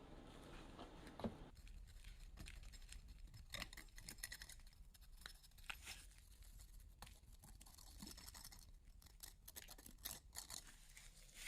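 Faint, scattered scraping and light clicking, with one sharper knock about a second in.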